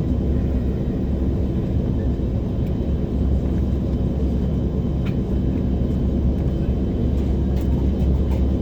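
Steady low rumble of cabin noise inside an Embraer 190 airliner on the ground, with a couple of faint clicks.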